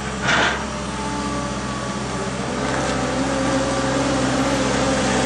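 Diesel engine of a 2003 New Holland LS170 skid steer loader running steadily, with a short hiss about half a second in. In the second half the engine note rises slightly and gets a little louder.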